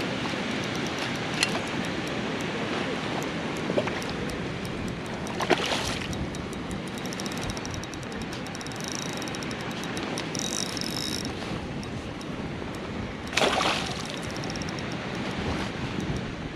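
Steady rush of river water and wind, with two brief splashes, one about five seconds in and one near the end.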